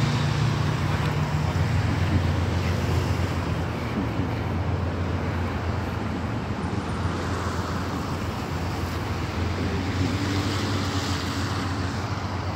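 Steady low rumble of a motor vehicle, with road and traffic noise.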